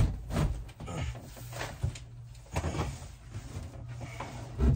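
Thin shower wall panel being forced and pried into place behind a tub, with a series of knocks, bumps and scrapes. The loudest knock comes right at the start and another near the end.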